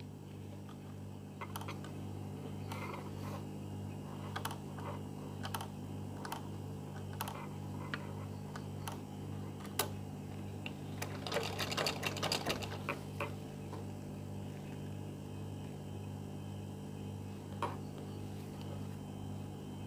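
Domestic sewing machine stitching cotton fabric: a steady low running hum with a regular pulse, scattered sharp clicks, and a short run of rattling clicks about eleven seconds in.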